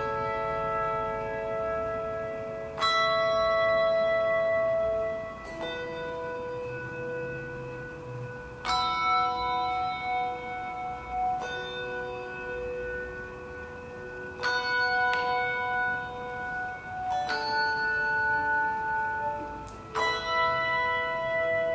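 Handbell choir ringing slow chords, a new chord struck about every three seconds, each one ringing on until the next.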